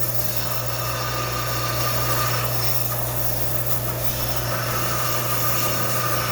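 Tabletop sander running with a steady motor hum while a rusty steel adze blade is held against the sandpaper, giving a continuous grinding hiss as the rust is sanded off.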